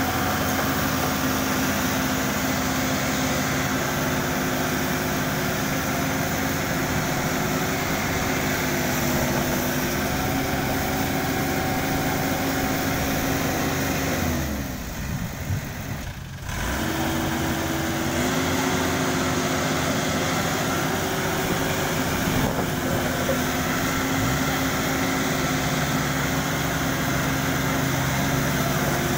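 Combine harvester engines running steadily. The engine tones shift in pitch a few times, and the sound drops briefly about halfway through.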